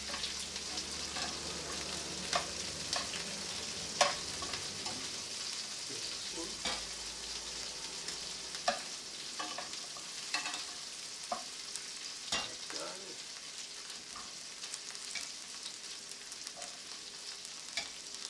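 Prawns sizzling in garlic and oil in a stainless steel sauté pan, the burner just switched off, so the steady sizzle eases slowly. Metal tongs click sharply against the pan several times as the prawns are picked out.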